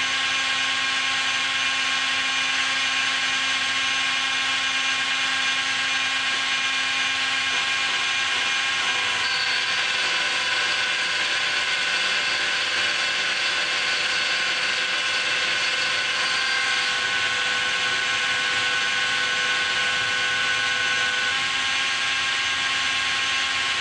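Makita 750-watt die grinder, used as a CNC spindle, whining steadily at high speed while its end mill cuts a slot through an aluminium block. The pitch shifts slightly about nine seconds in and again near two-thirds through.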